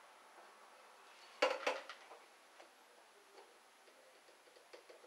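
A ruler clacks against a whiteboard as it is set down and shifted, two or three sharp knocks close together about a second and a half in, with faint light ticks before and after.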